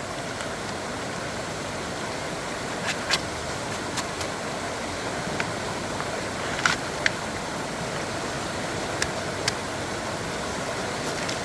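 Steady rushing noise with several short, sharp clicks or snaps scattered through it, two close pairs among them.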